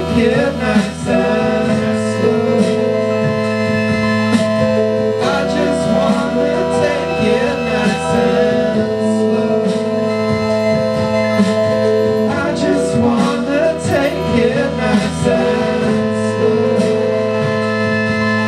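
Live band music, led by held keyboard chords that change every few seconds.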